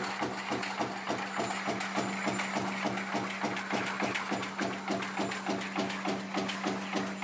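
Razor wire production-line machinery running: a steady hum under a fast, even rhythm of repeated mechanical strokes.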